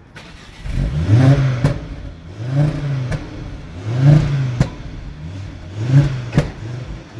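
Car engine revved repeatedly in short blips, about five times, each rev rising and falling back, with a sharp crack as each one drops.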